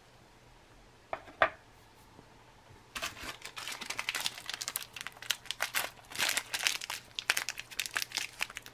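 A green plastic ration wrapper being crinkled and torn open by hand: a dense, crackly run from about three seconds in to near the end. About a second in come a couple of sharp taps.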